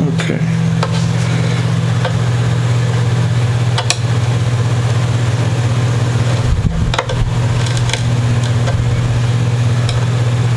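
Steady low hum, constant in pitch and level, with a few faint clicks and a knock about seven seconds in.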